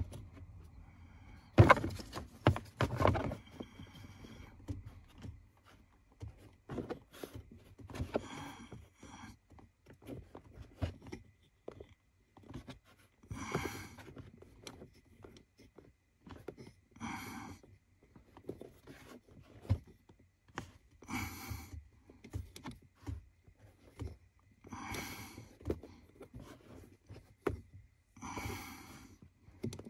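Scattered small clicks, knocks and scrapes of hand tools and fingers working at an accelerator pedal spacer, with a sharp knock about two seconds in. In the second half a hard, strained breath comes every three to four seconds, five in all.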